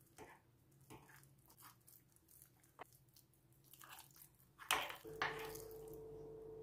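Metal spoon stirring thick chocolate mug cake batter in a ceramic mug, scraping against the sides and bottom in short, irregular strokes; the batter is stiff and hard to mix. About five seconds in a steady low hum starts under the stirring.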